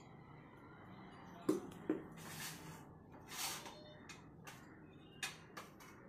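Faint clinks and scrapes of stainless steel plates, bowls and serving spoons as food is dished out: two sharp clinks about a second and a half in, then soft scraping and scattered taps.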